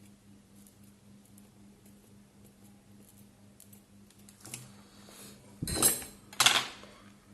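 Small metal repair tools being handled and set down on a workbench: faint light ticks, then two louder clattering knocks close together near the end, over a steady low hum.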